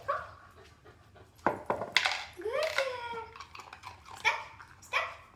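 Border collie fetching a tennis ball and dropping it into a hard plastic bowl: a few sharp knocks in the middle and two more near the end as the ball lands among the others, with a short rising-and-falling cry in between.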